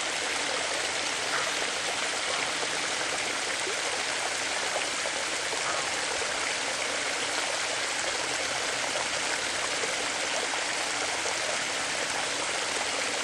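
Water running steadily over a spillway: an even, constant rushing.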